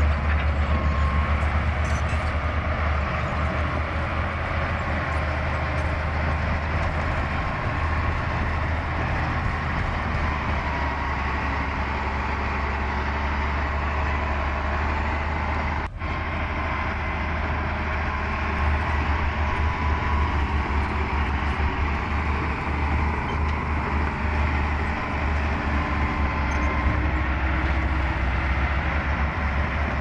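Heavy diesel earthmoving machinery working, with a continuous deep engine rumble under load. It breaks off sharply for an instant about halfway through, then carries on.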